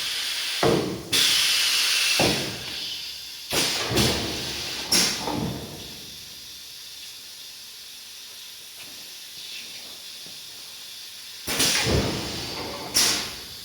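ITAL-PLASTICK S2L two-head PVC window welding machine working through its cycle: pneumatic cylinders clunk and air exhausts in sudden loud hisses, several in the first five seconds and two more near the end, with a quieter steady background between.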